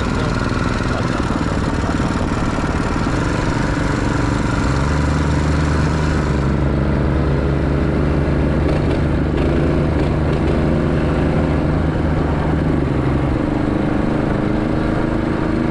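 Stock Predator 212 single-cylinder four-stroke engine on a Coleman B200R mini bike running steadily while riding. A deeper, stronger engine drone comes in about five seconds in and drops away near the end.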